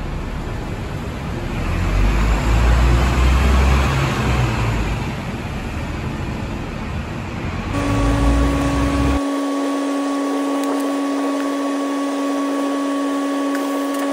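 Double-decker bus engine running at a covered bus terminus, a low rumble that swells about two seconds in and eases off after four. About eight seconds in this cuts to background music: one steady held note.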